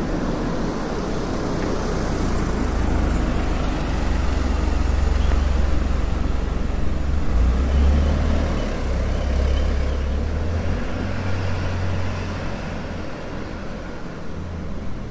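A motor vehicle passing close on a street: a low engine rumble with road noise, building to its loudest about halfway through and then fading.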